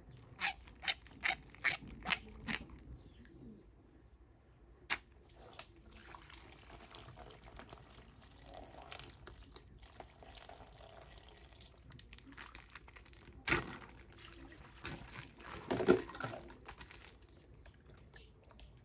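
Water dripping and trickling as a plastic toy figure is rinsed clean, with a run of light plastic clicks in the first few seconds and a couple of louder knocks near the end.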